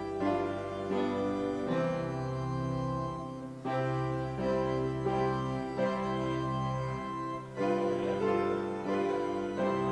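Organ playing slow, sustained chords, each held for a second or so before the harmony changes.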